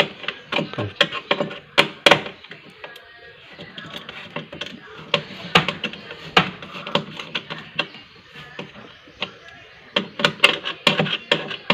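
Screwdriver working the screws of a fridge's freezer compartment: irregular small clicks and light knocks of metal on screw and plastic housing, coming thicker near the end.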